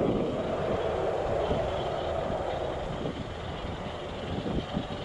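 Outdoor airport noise: a broad, distant aircraft engine rumble that gradually fades, with wind buffeting the microphone.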